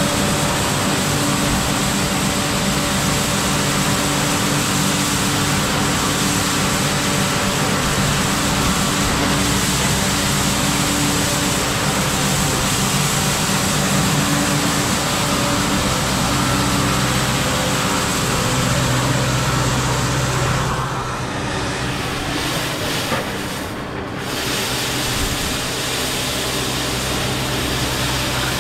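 Kubota L6060 tractor's diesel engine running steadily while its rotary broom spins, the bristles sweeping snow off pavement with a steady hiss. About three quarters of the way through, the sound dips and the tractor and broom are then heard from farther away.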